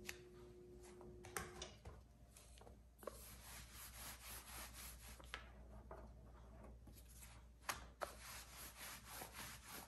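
Stainless-steel rolling pin rolling out paratha dough on a granite countertop: faint, repeated rubbing strokes back and forth, with a few light knocks.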